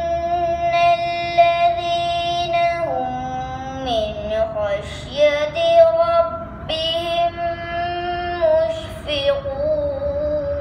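A young girl's voice in tarannum, the melodic chanting of the Quran: long drawn-out held notes of two to three seconds, joined by quick ornamented turns that step the pitch up and down.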